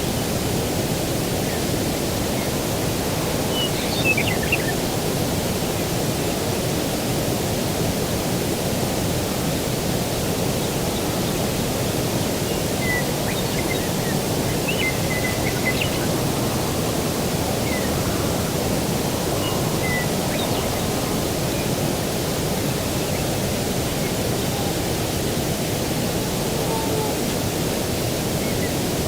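Steady rushing outdoor noise of breeze and distant ocean surf. Faint high bird chirps come through a few times, most clearly about four seconds in and again around the middle.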